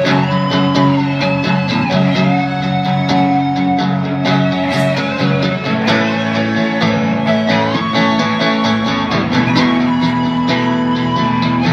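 Instrumental guitar music: a steady chordal backing under a lead line whose notes bend and slide up and down in pitch.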